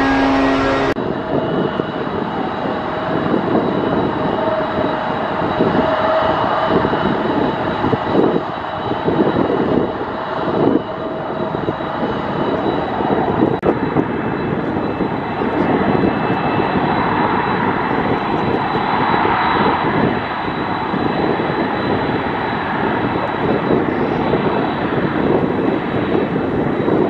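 A Boeing 747-400 freighter's four jet engines running as the aircraft moves along the runway: a steady, noisy rumble with a faint high whine over it. Music is cut off about a second in.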